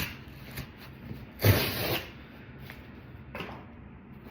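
Cardboard box's pull-tab tear strip being ripped open: one noisy tearing sound about half a second long, about a second and a half in, with a click at the start and lighter handling of the box later.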